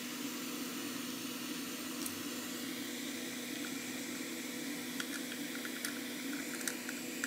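Small fan running with a steady hum and an even airy hiss, joined by a few faint light ticks from about five seconds in.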